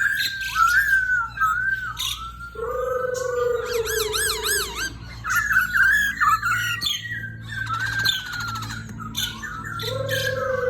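Chinese hwamei (poksay hongkong) singing continuously: a loud, varied run of whistled phrases, fast up-and-down warbles and trills. A lower drawn-out tone sounds beneath the song from about two and a half seconds to five seconds in and again near the end.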